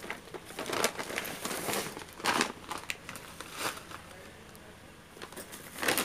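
Plastic grocery bags rustling and crinkling as they are handled and set into a car boot, in irregular bursts that are loudest about two seconds in and near the end.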